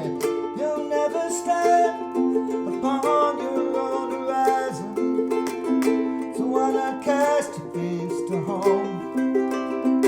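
Clawhammer ukulele playing the song's accompaniment, a steady run of plucked notes and chords.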